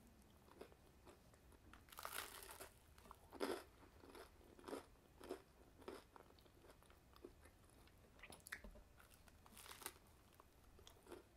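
A person chewing a toasted frozen panini: a run of soft, irregular crunches of the crisp bread, with two louder bites, about two seconds in and near the end.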